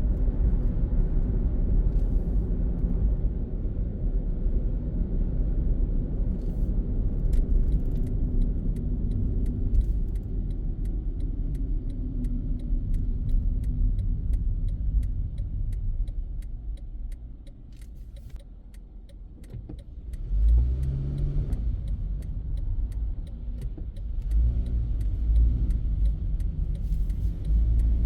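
A car driving, heard as a steady low rumble of engine and road noise. About two-thirds of the way through it quietens as the car slows or stops, then the engine note rises as it pulls away again.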